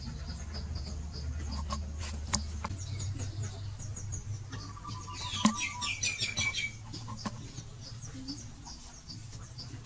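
Outdoor yard ambience: a steady low hum with high chirping repeating throughout, and a chicken calling once about five seconds in, with a falling end.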